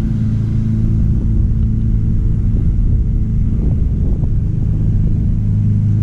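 Steady low mechanical hum, with a few faint light clicks about two-thirds of the way through.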